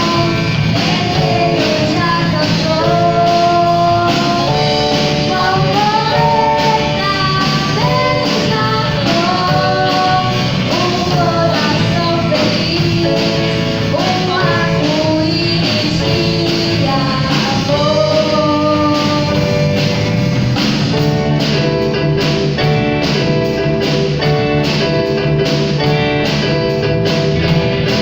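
A band playing a song: a voice singing the melody over guitar and a steady beat.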